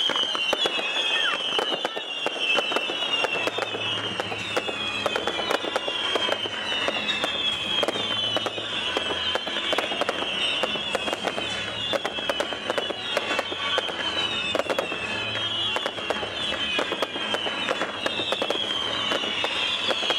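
Fireworks finale barrage: a dense run of crackles and bangs, with whistling shells overlapping one another, each whistle falling in pitch and a new one starting about every second.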